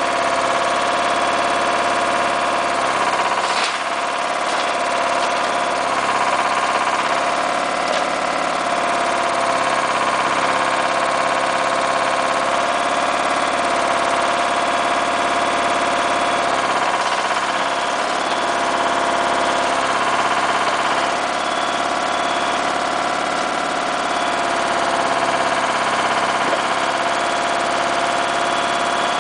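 AUSA 200 RMR mini dumper's engine running steadily while it powers the backhoe arm digging and lifting soil. The engine note dips briefly a few times as the arm works.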